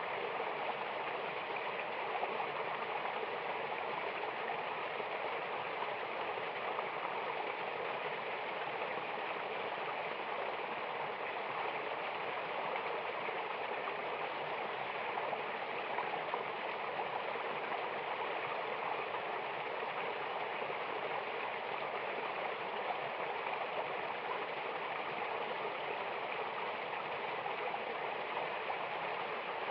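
Rushing water of a waterfall and mountain stream, a steady even wash of noise with no change.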